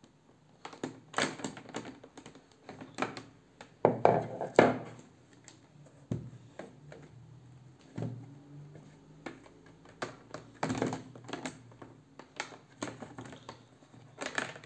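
Plastic clicks and knocks of a motorcycle helmet visor being taken off its side mounts and fitted back on, loudest around four seconds in.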